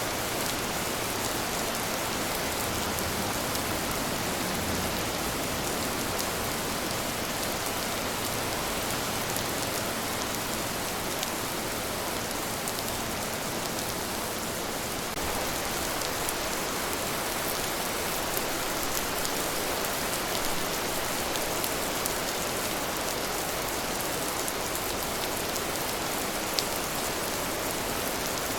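Steady rain falling on a surface: an even hiss with scattered sharper ticks of individual drops.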